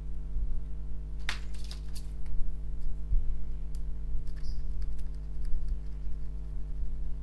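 A thin wooden stick scraping and picking over the surface of a washing-machine control circuit board, giving small scratchy clicks, with one louder scratch about a second in. A steady low electrical hum runs underneath.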